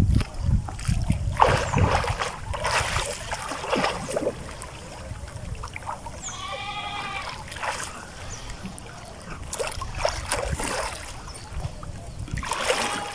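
Water splashing and sloshing irregularly as a man swims through a fast-flowing river, pushing a bamboo pole along. It is loudest in the first few seconds. About six seconds in, a brief high wavering call is heard.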